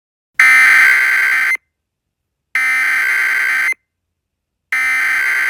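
Emergency Alert System SAME header: three bursts of raspy digital data tone, each a little over a second long with about a second of silence between them. The bursts open an emergency alert broadcast, here a tornado warning.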